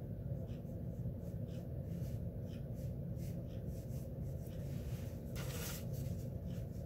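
Water brush stroking across small watercolour paper: soft, short scratchy strokes a few times a second, with one longer stroke about five and a half seconds in, over a steady low hum.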